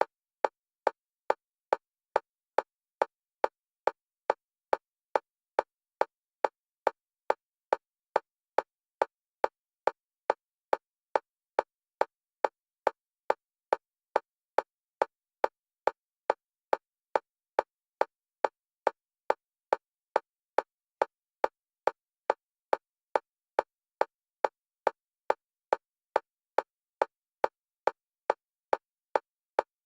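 Single-pitched metronome click for EMDR bilateral stimulation, repeating at an even fast pace of about two a second and alternating between the left and right stereo channels.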